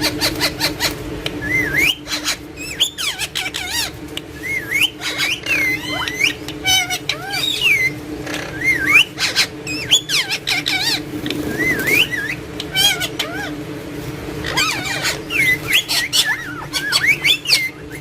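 Green parakeet calling non-stop: quick rising and falling whistles, chirps, squawks and rapid clicking trills, over a steady low hum.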